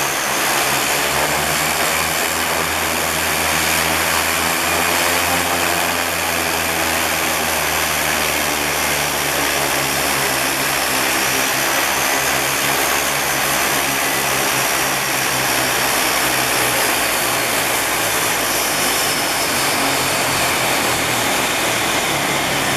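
De Havilland Canada DHC-6 Twin Otter's PT6A turboprop engines running steadily at the dock, a propeller drone with a thin high turbine whine over it.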